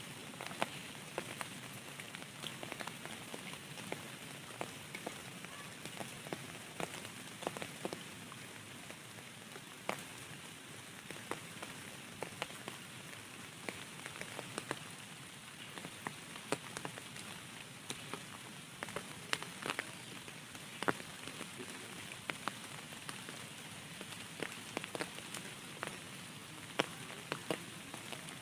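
Steady rain with many distinct drops striking a surface nearby, an even hiss scattered with sharp irregular taps.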